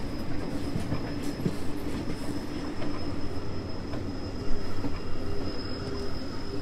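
Steady running noise of a train on the rails: a continuous low rumble with a held hum, a thin steady high-pitched whine above it, and occasional faint clicks. There is a single sharper knock about four and a half seconds in.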